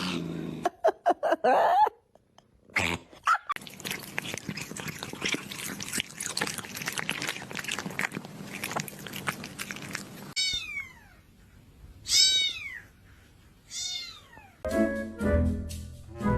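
Dog yawning with high, squeaky whines: three squeals that each slide sharply down in pitch in the second half, after a stretch of rustling and small clicks. Music with brass comes in near the end.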